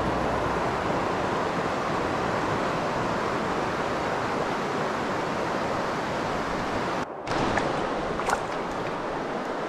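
Steady rush of a shallow, rocky mountain trout stream, heard close with the microphone at the water's surface. The sound breaks off for a moment about seven seconds in, followed by a couple of faint ticks of splashing water.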